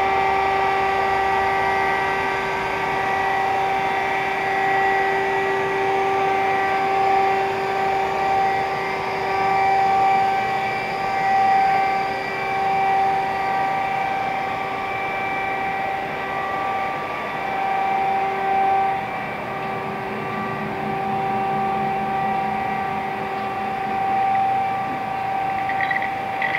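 Powered machinery running steadily: a continuous hum with a whine made of several steady tones, with a few short clicks near the end.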